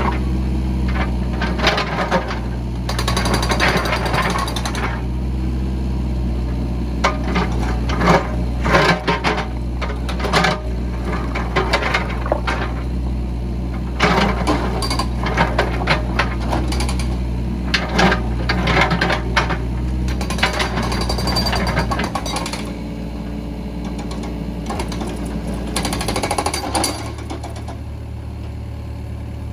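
Case 695ST backhoe loader's diesel engine running steadily, with repeated sharp metal clanks and rattles over it. The engine note drops lower about two-thirds of the way through, and again near the end.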